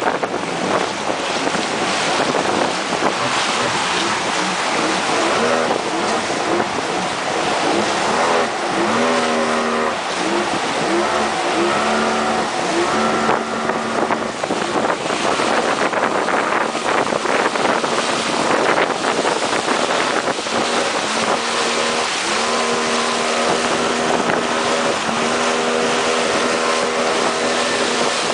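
A boat engine drives through river rapids over a constant rush and splash of white water against the hull. The engine note rises and falls several times, then holds steady near the end.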